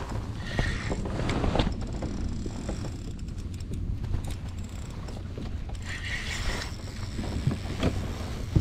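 Steady low wind rumble on the microphone and water against a fishing kayak's hull, with scattered clicks and knocks as a spinning reel is cranked.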